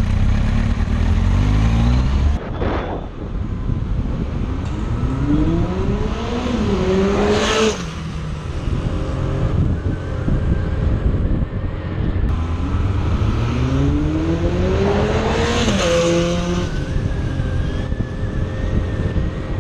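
Yamaha R1 sportbike's inline-four engine accelerating hard twice, its pitch rising steeply through the revs, each run ending in a loud rush as the bike goes past. Engine and road noise run underneath throughout.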